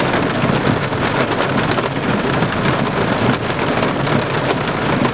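Steady heavy rain, with scattered sharp ticks of small pea-size hail falling in with it.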